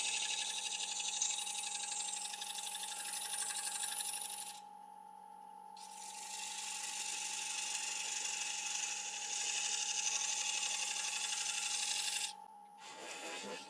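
Wood lathe running with a steady motor whine while a turning tool cuts a tenon on a spinning apple-wood blank, a scraping hiss of the cut. The cut pauses briefly about five seconds in and resumes. The whine stops about twelve seconds in, and a brief scrape follows near the end.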